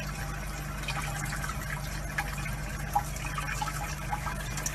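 Thin stream of tap water running steadily into a sink, with a few faint small clicks.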